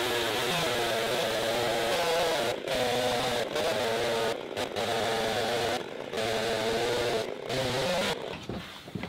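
Chainsaw in an Alaskan chainsaw mill running at full throttle as it rips a log lengthwise into lumber. The engine note wavers under load and breaks off briefly several times, then drops away near the end.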